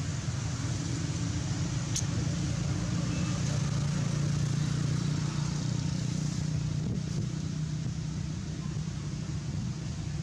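Steady low hum of a motor vehicle engine running, swelling slightly midway and easing off near the end.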